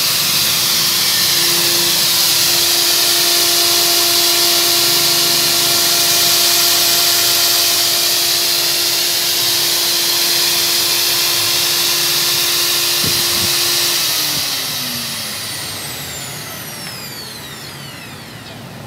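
Electric magnetic drill's motor running at a steady speed with a strong hiss and a steady hum. It is switched off near the end, and the motor winds down with falling whines.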